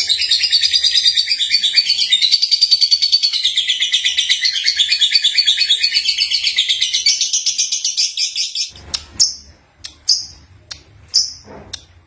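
Young lovebird (Agapornis) singing: a continuous, rapid, high-pitched chattering warble that breaks off about nine seconds in into separate short chirps.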